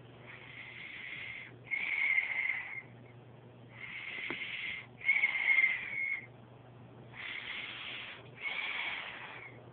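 A sleeping child's asthmatic breathing with expiratory wheezing: about three breaths, each in two parts, the second part louder and carrying a high whistling wheeze.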